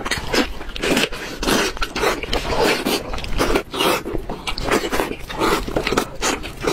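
Close-miked eating: a dense, irregular run of biting and chewing sounds as a large sauce-glazed chunk of fatty braised meat is torn into and chewed, with no pause.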